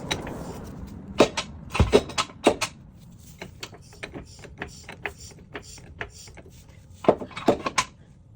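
Irregular metallic clicks and clanks from a car jack being worked to lift a car, loudest in a cluster about a second in and another near the end.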